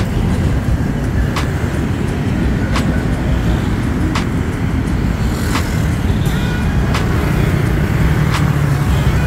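City road traffic: a steady low rumble of motor vehicles going by, with a faint sharp tick repeating about every one and a half seconds.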